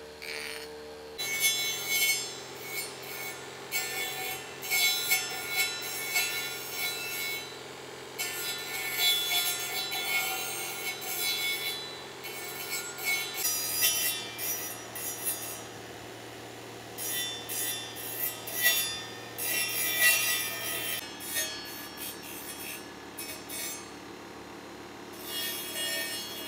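Motor-driven sanding disc running with a steady hum while a wooden carving is pressed against it, giving irregular bursts of rubbing, gritty sanding noise as the wood is shaped.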